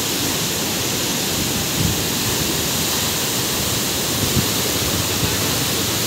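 Waterfall, water falling and splashing in a steady, even rush of noise.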